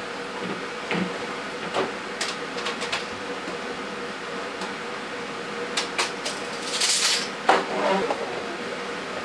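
Handling noises from fitting a fabric swag onto a pelmet board: scattered small knocks and clicks and a brief rustling hiss about seven seconds in, over a steady faint hum.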